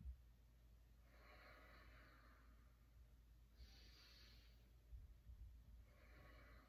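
Faint, slow human breathing: three soft breaths a couple of seconds apart over near-silent room tone.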